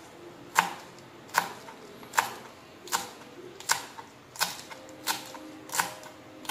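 Kitchen knife chopping leafy greens on a plastic cutting board: sharp, evenly spaced taps, about one every three-quarters of a second.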